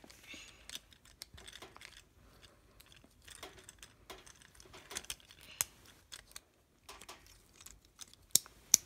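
Plastic parts of a Bakugan Mega Dragonoid transforming toy clicking and clattering as they are handled and moved into place, with two sharper clicks near the end.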